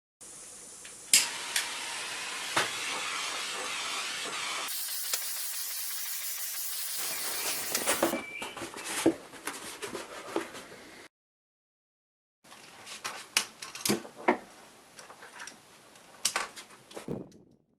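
A steady hissing spray lasting about seven seconds, sharper and brighter for its last few seconds. Then a run of irregular clicks and light knocks of small objects being handled, with a brief gap in the middle.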